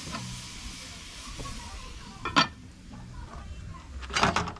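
Food sizzling in a covered pot over an open fire, the sizzle dying down over the first couple of seconds. Then comes one sharp knock about halfway through and a quick clatter of knocks near the end.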